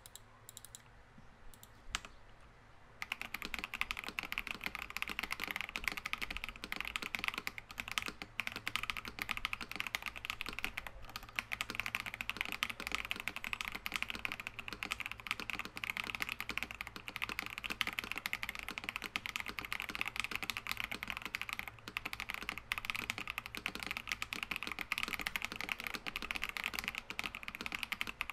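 Continuous fast typing on an IKKI68 Aurora R2 mechanical keyboard with lubed Green Jacket tactile switches, an aluminum plate and ABS double-shot keycaps. The typing starts about three seconds in, after a few isolated clicks.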